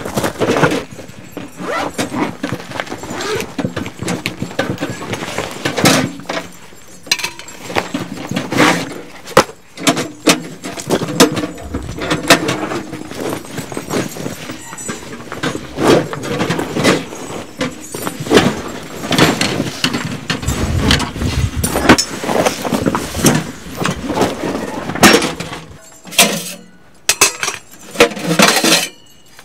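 Footsteps on snow-dusted gravel and a bag being set down, then the metal parts of a small box wood stove and its chimney pipe being handled: a long run of irregular clinks, knocks and rustles.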